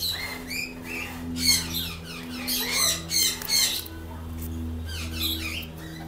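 Sun conures chirping and squeaking in several short bursts of high, quick calls.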